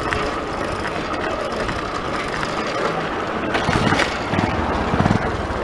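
Steady road and wind noise from riding a bicycle along a paved street, with louder low rumbling between about three and a half and five seconds in.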